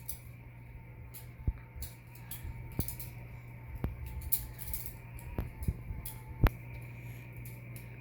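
Butterfly knife (balisong) being flipped: its handles swing and clack against each other and the blade in quick, irregular clicks, a few times a second with short pauses, the loudest click a little past six seconds in.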